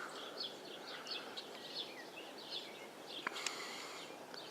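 Small birds chirping: short high chirps repeating about twice a second over a faint hiss of outdoor ambience, with a single sharp click about three seconds in.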